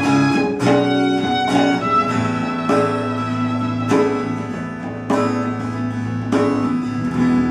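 Live acoustic band music: a strummed acoustic guitar with electric bass guitar and cajón playing a song, with strong strum accents about once a second.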